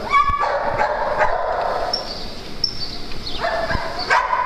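Small dogs barking and yipping at play, with a sharp yip at the start and a run of barks near the end.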